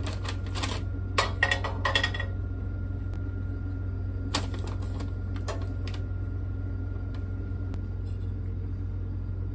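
Hard clicks and clatter of charcoal cubes being set on the metal ring of an electric coil hot plate, in quick bursts during the first two seconds and a few more about four to five and a half seconds in, over a steady low hum.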